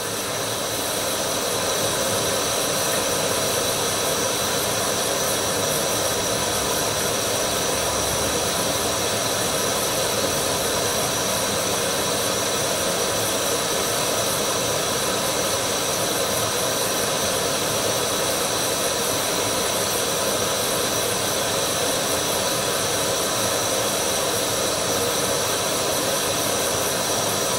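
Canister gas stove burner running at full flame under a mess-kit pot, a steady hiss, while the water in the pot heats to just short of the boil.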